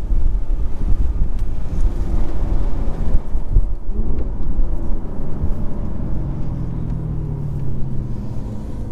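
Chevrolet Camaro ZL1's supercharged 6.2-litre V8 running with heavy road and rumble noise as heard from inside the car; the engine note drops in pitch a couple of times and the sound eases off toward the end as the car slows at the end of its final lap.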